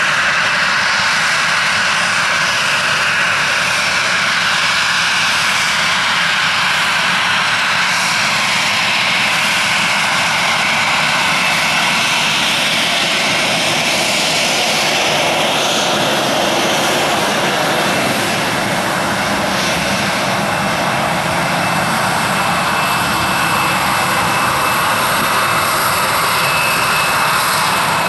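A Boeing 737-800's CFM56-7B turbofan engines running at low thrust as the jet taxis onto the runway, a loud steady whine and rush with no spool-up. A thin steady high tone comes up over the rush in the later seconds.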